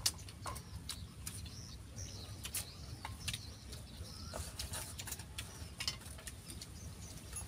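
Chopsticks clicking and clinking against bowls and pots as people eat, a scatter of short, sharp taps over a steady low rumble.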